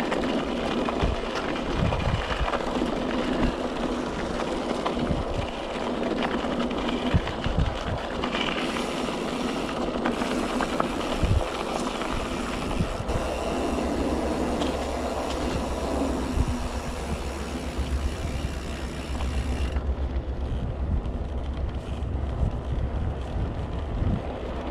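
Mountain bike riding over a gravel path: tyres crunching on loose stones and the bike rattling over bumps, heard as steady noise with frequent knocks. A low rumble grows through the second half, and about three-quarters of the way through the gravel hiss drops away as the tyres move onto smooth concrete.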